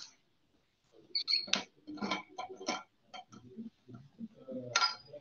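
A run of about ten irregular light clicks and clinks, as of small hard objects being handled close to a microphone.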